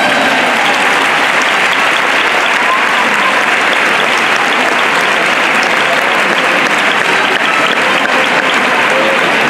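A large crowd applauding, with dense, continuous clapping at a steady level.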